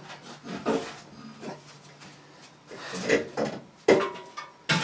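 Irregular metal clanks and knocks as a piece of the car's steel frame is worked free, the last knock ringing briefly.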